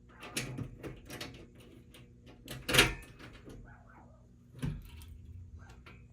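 Keys rattling and clicking at a fire alarm panel's locked cabinet, with one sharp knock about three seconds in and a softer one near five seconds, as the lock and metal door are worked. A faint steady hum runs underneath.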